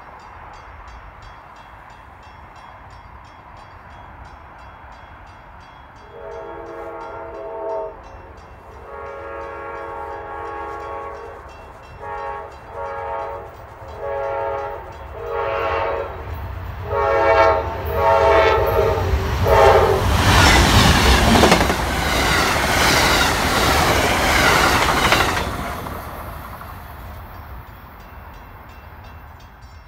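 Horn of an Amtrak P42DC locomotive sounding a series of blasts as the train approaches, two long ones and then several shorter ones, each louder than the last. The train then passes at speed with a loud rush of wheels on rail that fades away.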